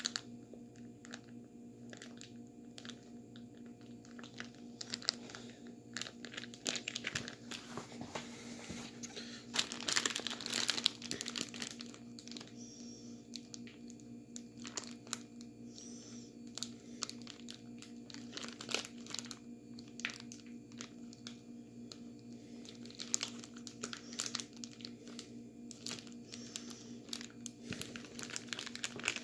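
Plastic bag of ice and salt crinkling and crunching as it is handled, in irregular bursts over a steady low hum.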